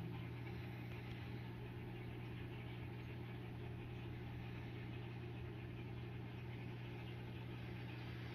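Aquarium filtration equipment running: a steady low hum with a constant hiss of moving water.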